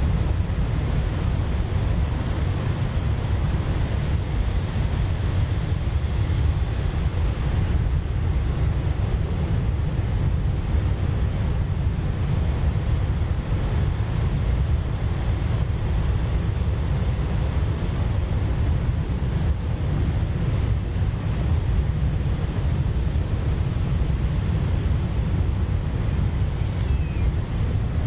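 Stock sound-effect recording of storm surf: ocean waves breaking with wind, a steady, deep rumbling wash.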